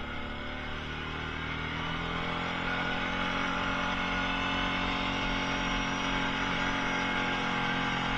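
Kawasaki Prairie ATV engine running steadily, growing louder about two seconds in as the throttle opens, then holding.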